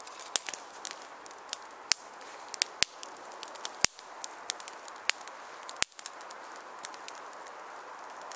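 Newly lit kindling fire of thin dry twigs crackling: irregular sharp pops, several a second, over a steady hiss of burning.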